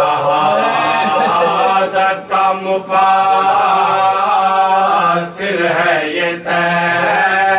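Men chanting a marsiya, a Shia elegy in Urdu, without instruments. They sing long, held notes that slide between pitches, broken by brief pauses for breath.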